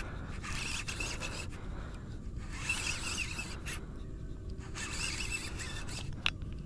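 A fishing reel being cranked in bursts while a hooked fish is fought, with scraping and rubbing handling noise. One sharp click near the end.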